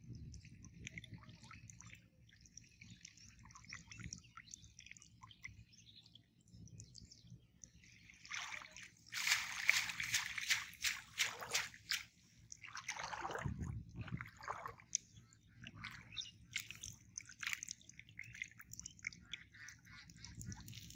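Water splashing and sloshing as a cast net is hauled up out of shallow water, with water streaming and dripping from the mesh. The splashing is loudest for a few seconds about halfway through, over a low steady rumble.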